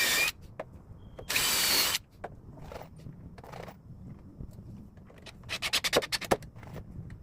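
A power drill run in two short bursts with a whining motor pitch, each under a second long. Several seconds later comes a quick run of sharp clicks and taps.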